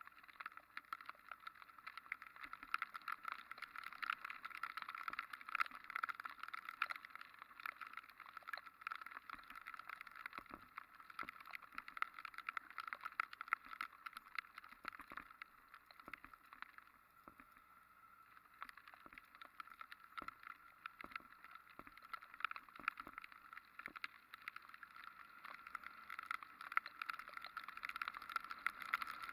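Raindrops tapping steadily on the bike-mounted camera's housing over muffled wind and tyre noise from a motorcycle riding through rain on wet streets. It eases off for a couple of seconds past the middle and builds again near the end.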